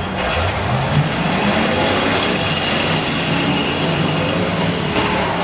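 Several demolition derby cars' engines revving, their pitch rising and falling as the cars push and ram one another.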